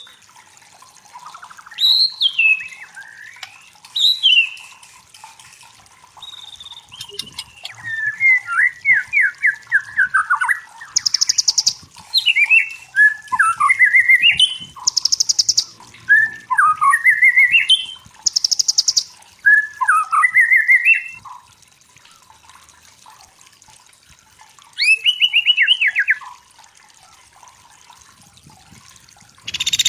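White-rumped shama singing: separate phrases of clear whistles that glide up and down and quick trilled runs. Three short harsh buzzing notes come in the middle, with pauses between the phrases.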